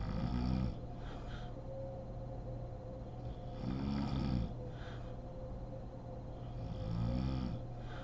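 A woman snoring in deep sleep: three low snores about three seconds apart, each followed by a short breathy sound.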